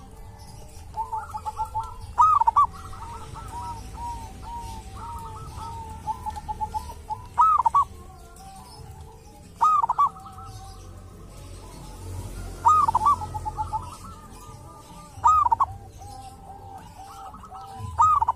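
Zebra dove (perkutut) singing: a string of phrases, each a loud hooked coo followed by a quick run of softer staccato coos, about six phrases.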